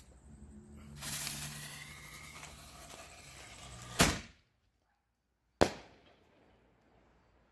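Canister firework shell: the lit fuse hisses for about three seconds, then the lift charge fires from the tube with a loud bang, and about a second and a half later the shell bursts in the air with a second sharp bang that fades out.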